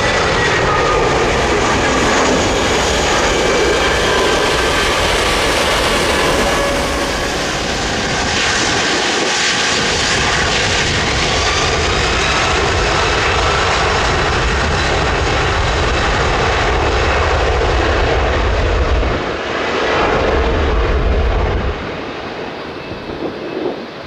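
Airbus A340-600's four Rolls-Royce Trent 500 turbofans at takeoff power: a loud, steady jet roar with a thin whine in the first few seconds. The roar drops in level near the end as the airliner climbs away.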